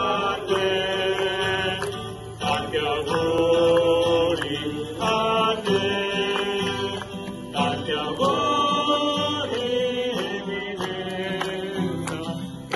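Music: voices singing a slow, chant-like melody with long held notes.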